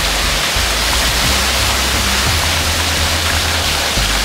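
Water jets of a children's splash play area spraying and splashing, a steady hiss of falling water.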